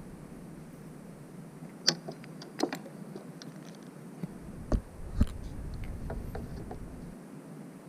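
Scattered clicks and knocks of fishing tackle being handled while the hook is changed for a bigger one. The loudest are two sharp knocks about half a second apart, about five seconds in.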